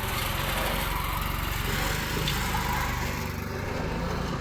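An engine running steadily at a constant speed, with a broad rushing noise over it.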